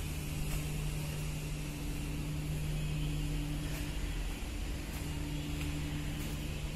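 Footsteps climbing tiled concrete stairs, a few faint ticks about a second apart, over a steady low electrical-sounding hum.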